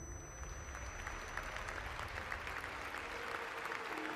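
A faint, dense patter of many small taps, like distant applause, over a low rumble that fades out partway through.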